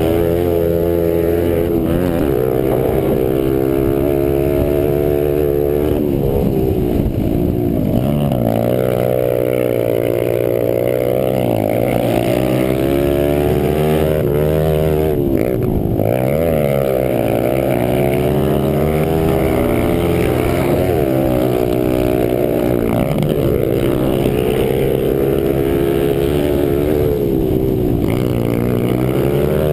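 Pit bike engine running hard under load on a motocross track, its pitch climbing and dropping again and again as the rider accelerates and backs off through the turns and gears.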